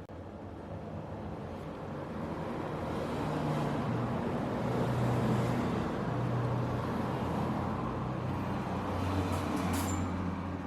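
A steady low mechanical hum with a rushing noise, growing louder over the first few seconds and then holding.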